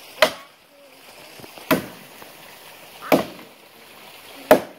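Axe chopping into the solid wood of a dead tree, four sharp strikes about a second and a half apart.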